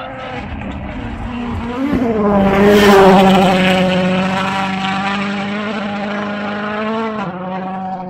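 Rally car engine at high revs passing on a gravel stage. It grows louder to a peak about three seconds in, then holds a steady pitch while slowly fading as it pulls away.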